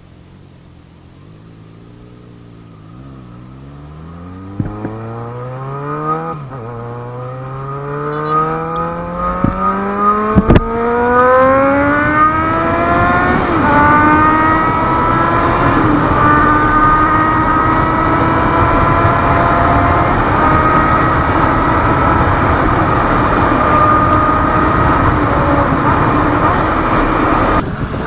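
Yamaha XJ6 motorcycle's four-cylinder engine revving up under hard acceleration: its pitch climbs steadily for about ten seconds, with a brief dip about six seconds in, then holds high and loud for the rest. There is a sharp click about ten seconds in.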